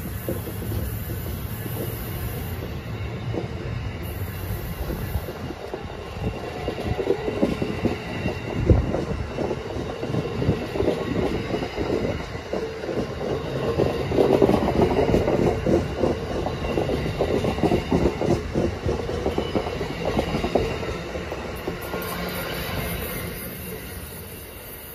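Amtrak Northeast Regional passenger train's Amfleet coaches rolling past close by: a continuous rumble with dense, rapid wheel clatter, loudest about halfway through and easing off near the end as the train goes away.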